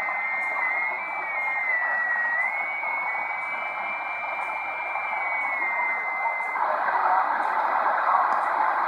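Shortwave radio static from a Degen DE1103 receiver, with a single high whistling tone over the hiss that wavers and steps up and down in pitch. It cuts out about six and a half seconds in, and the hiss then gets louder. It is a strange musical signal that the listener takes to be almost like a jamming signal sent on SSB.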